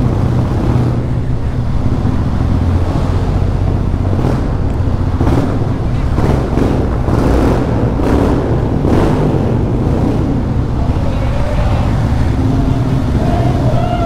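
Motorcycle running at a steady cruise while being ridden, its engine and the rush of riding a dense, unbroken low rumble.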